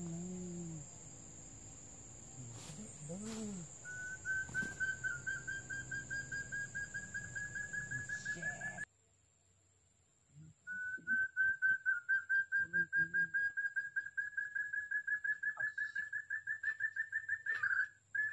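Quail call: a rapid train of high whistled notes that rises slightly in pitch and speeds up, heard twice for several seconds each time. Two low hooting notes come before it.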